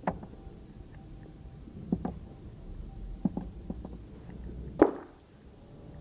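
Quiet outdoor background with a handful of short, sharp knocks or clicks, the loudest nearly five seconds in.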